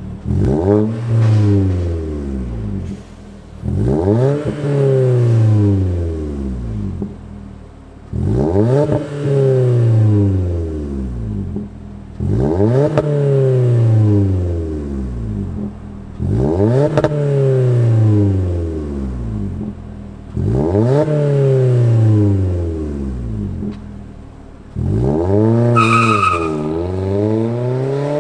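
Toyota Corolla hatchback's four-cylinder engine through an aftermarket DC Sports stainless exhaust with quad tips, revved six times at standstill, each rev rising fast and falling back to idle. Near the end the car pulls away under acceleration, with a gear change partway through and a brief high squeak.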